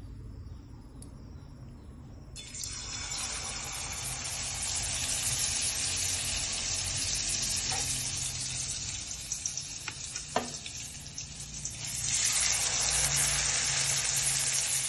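Tortang puso ng saging (banana blossom omelette) frying in hot oil: a sizzle that starts suddenly a couple of seconds in and gets louder near the end, with a few light clicks in the middle.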